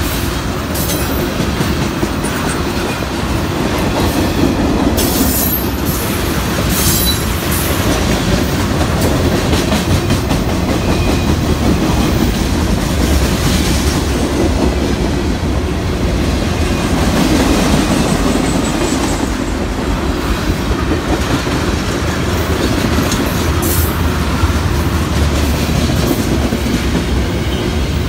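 Freight cars rolling past close by: a steady rumble of steel wheels on rail with clickety-clack, broken by a few brief high-pitched wheel squeals.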